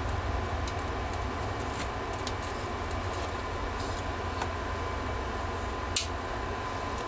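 Steady low mechanical hum with a faint steady whine above it, and a few light clicks and ticks, the sharpest about six seconds in.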